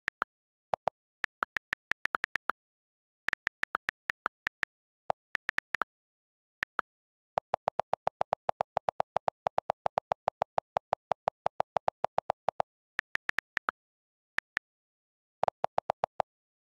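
iPad on-screen keyboard key clicks: quick taps in short runs as letters are typed. Midway comes a long fast even run of lower clicks, about eight a second for about five seconds, as the held delete key repeats and erases the text, then a few more taps near the end.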